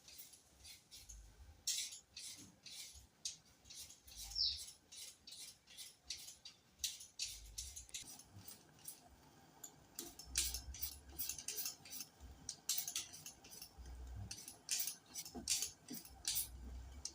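Knife work on carrots: a run of irregular short scrapes and clicks, several a second, with an occasional dull thud.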